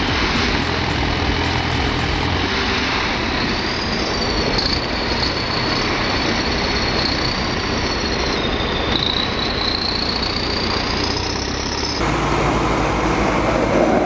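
Heavy crawler machinery running under load, with a high, wavering metallic squeal from about four seconds in, typical of steel tracks or steel winch gear dragging. Near the end it changes abruptly to a steadier, lower machine noise.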